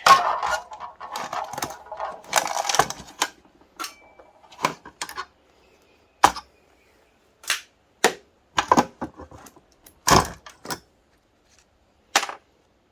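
Plastic and steel parts of a dismantled exercise bike being handled: a few seconds of clattering, then a string of separate sharp knocks and clicks at uneven intervals as pieces are set down and sorted.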